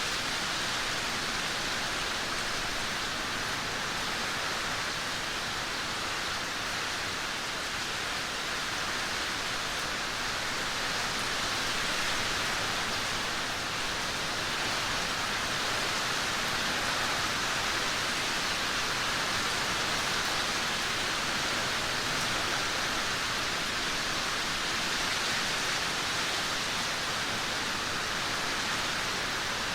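Heavy rain pouring down steadily as an even hiss, swelling slightly about halfway through.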